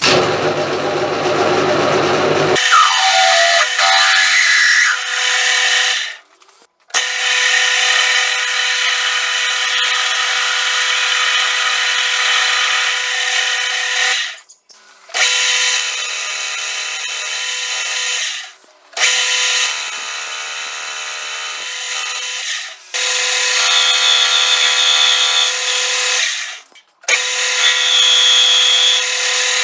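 Metal lathe running with a twist drill in its chuck, drilling into a steel part held on a vertical milling slide: a steady machine whine with a high squeal from the cut at times. The sound breaks off briefly four times.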